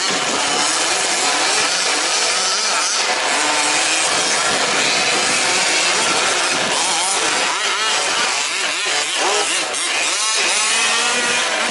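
Several 1/5-scale RC trucks' small two-stroke petrol engines running and revving together, many pitches rising and falling over one another with a buzzing, chainsaw-like tone.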